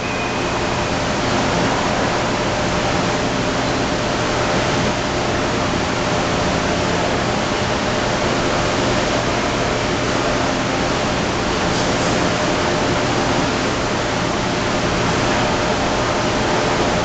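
Steady, loud rushing noise with a faint low hum underneath, with no distinct ball strikes standing out.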